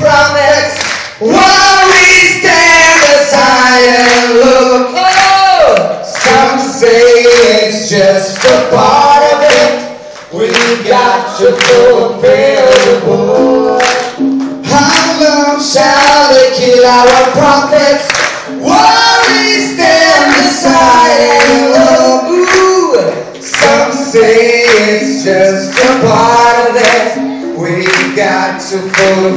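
Live band music with female and male voices singing together over electric guitar and drums, loud throughout.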